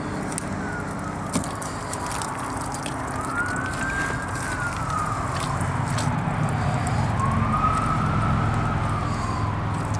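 A siren wailing slowly up and down, about one rise and fall every four seconds, over a steady low hum.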